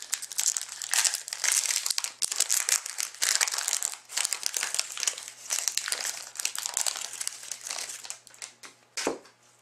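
Foil trading-card pack wrapper being torn open and crumpled by hand, a dense crackling that thins out near the end, with a single sharp tap about nine seconds in.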